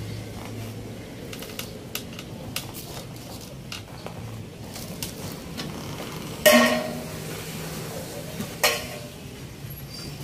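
Light metallic clicks and taps, then two loud, sharp metal clanks that ring briefly, about six and a half and eight and a half seconds in, over a faint low hum.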